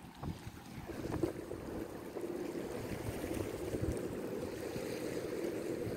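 Lake freighter's horn sounding a long, steady salute blast that starts about a second in, with wind buffeting the microphone.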